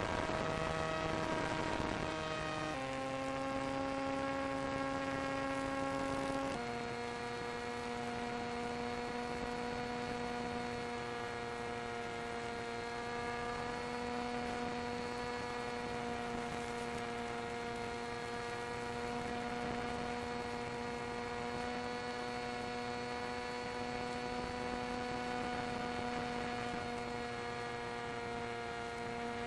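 RC plane's motor and propeller running with a steady humming whine. The pitch changes in steps about 3 and 6.5 seconds in, then holds steady.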